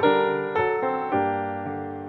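Slow piano music: notes and chords struck one after another, each fading away before the next.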